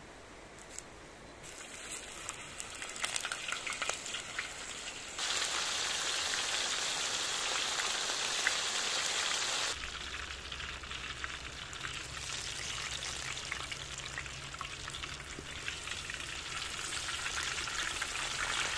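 Hot oil sizzling and crackling in a saj pan over a campfire as a burger patty fries in it. The sizzle builds over the first few seconds, is loudest between about five and ten seconds in, then carries on a little lower.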